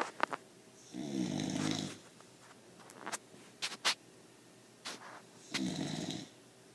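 Sleeping pit bull puppy snoring: two snores, each about a second long, about four and a half seconds apart, with a few short sharp clicks in between.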